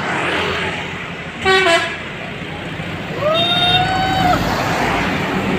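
Musical telolet horn on a bus sounding two notes: a short, loud blast about a second and a half in that drops in pitch, then a longer note about three seconds in that slides up and holds for over a second. A steady vehicle noise runs underneath.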